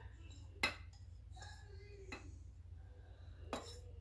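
Grated coconut being scraped from a ceramic bowl into a stainless steel mixer-grinder jar, with two sharp clinks of the bowl on the jar about three seconds apart and faint scraping between. A low steady hum lies under it.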